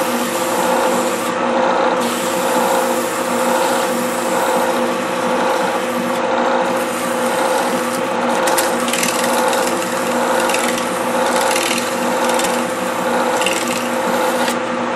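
Metal lathe running with a steady hum while sandpaper is held by hand against a spinning epoxy-coated, 3D-printed headphone ear cup, giving a continuous rasping rub with a faint pulse about once a second.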